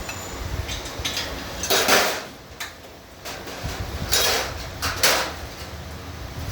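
Metallic clattering: four short clanks and scrapes, spread over a few seconds, over a low hum.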